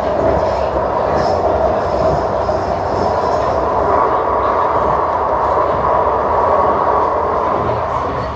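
Electric light-rail tram running, a steady rumble with a motor whine that rises in pitch over the first few seconds, then holds. It drops off in loudness near the end.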